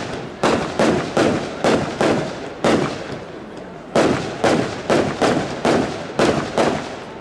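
Aerial fireworks going off in a rapid run of sharp bangs, about two a second, each with a short echoing tail.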